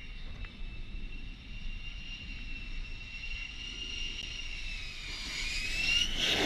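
F-35 fighter jet's F135 turbofan whining steadily on its approach, then growing louder and rising in pitch, swelling into a loud rushing roar as the jet reaches the deck near the end.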